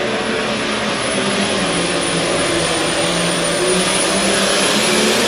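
Turbocharged diesel engine of a John Deere pro stock pulling tractor running flat out under load as it drags the weight sled, with a high, steady whine over the engine.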